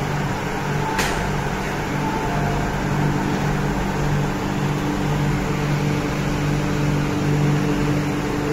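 MTR Q-train standing at the platform, its air-conditioning and onboard equipment humming steadily. About a second in comes a sharp click and a few short beeps as the train doors and platform screen doors open.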